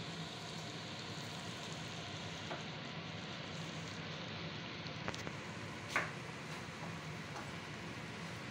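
Clay tagine of chicken and vegetables simmering in its broth on a gas stove: a steady sizzling hiss, with two sharp clicks, the louder one about six seconds in.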